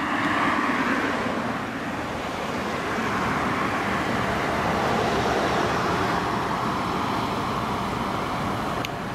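Steady road traffic noise: cars and tyres running on the road, swelling slightly in the middle.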